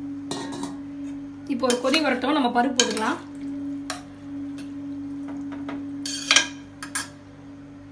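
A metal ladle stirring cooked vegetables in a pressure cooker, scraping along the pot for a second or two, then a few sharp knocks against the metal later on. A steady low hum runs underneath.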